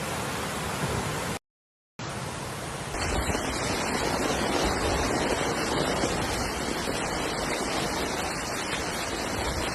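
Steady rushing noise of floodwater. It cuts out completely for about half a second near the start, then resumes and grows louder about three seconds in.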